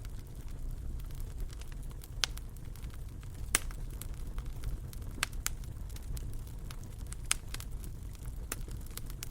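Wood fire crackling over a steady low rumble, with scattered sharp pops; the loudest comes about three and a half seconds in.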